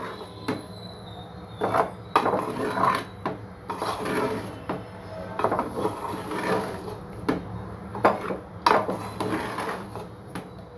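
Wooden spatula stirring and tossing cooked rice in a pot, scraping and knocking against the pot's sides in irregular strokes about once a second.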